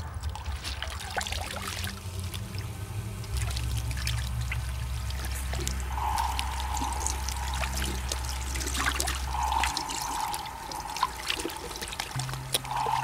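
Water pouring and trickling from a wet string mop wrung out by hand into a plastic bucket, with irregular drips and splashes, over low sustained background music.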